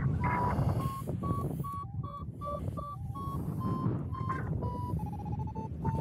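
Paragliding variometer beeping in short tones about two a second, the pitch climbing and then falling, with one longer, lower tone near the end; the beeps and their pitch signal that the glider is climbing in lift and how fast. Wind rushes on the microphone from the airspeed underneath.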